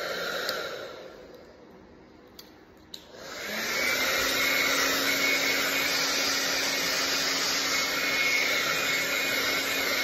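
Handheld hair dryer blowing. A fainter rush of air dies away in the first second, then the dryer starts up about three seconds in with its motor hum rising to speed, and runs steadily with a loud, even hiss of air.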